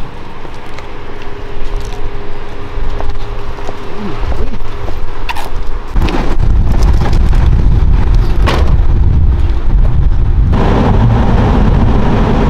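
Car and traffic noise: a loud low rumble, much heavier and steadier from about halfway in, with a few sharp knocks.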